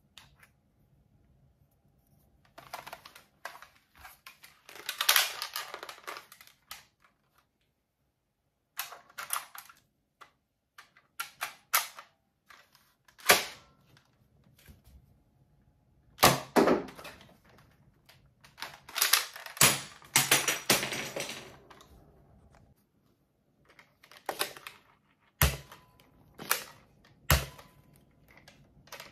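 Plastic toy foam-dart blasters being handled: bursts of clicking and rattling as darts are loaded and the blasters are worked. A few single sharp snaps stand out, the loudest sounds in the stretch.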